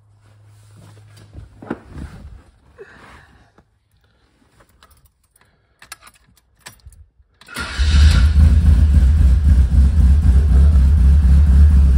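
A few faint clicks and light knocks, then about seven and a half seconds in the cold Fiat 124 Spider's 2.0-litre twin-cam four-cylinder engine, fed by a Weber 34ADF carburettor, cranks briefly, catches and settles into loud, steady running.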